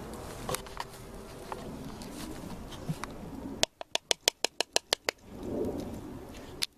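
Metal spoon clicking against an iron skillet while butter is pushed around the pan: a few scattered clicks, then a quick run of about nine sharp clicks a little past halfway, with one more click near the end.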